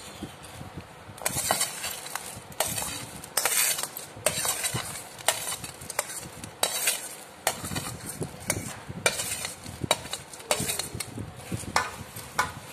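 Metal spoon stirring fried boondi into sugar syrup in an aluminium pot, and scooping more boondi from a steel plate. It gives an uneven run of short scrapes and clinks against the metal, about two a second.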